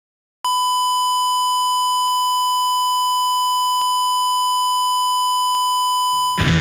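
Heart-monitor flatline sound effect: one long, steady beep at a single pitch, starting about half a second in and held for nearly six seconds, signalling death. Rock music with guitar comes in near the end.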